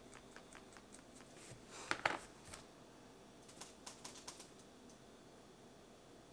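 Faint light clicks and taps of makeup containers and a brush being handled. There is a louder brief clatter about two seconds in and a quick run of clicks past the middle.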